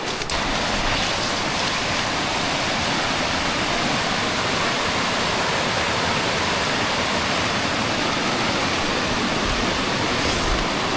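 Mountain creek rushing over a small cascade: a steady, even noise of falling water.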